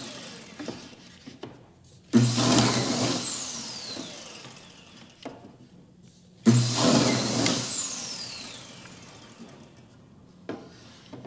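Kreg pocket-hole machine drilling pocket holes in a board. Twice, about two and six and a half seconds in, the motor cuts in suddenly and loudly with a high whine that rises, dips and then falls away as the bit bores in and spins down over a few seconds. Light knocks come between the cycles as the board is repositioned.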